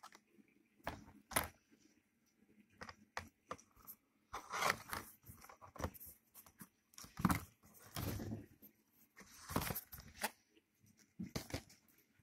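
DVD cases and box-set packaging being handled, with irregular rustles, clacks and scrapes of plastic and cardboard.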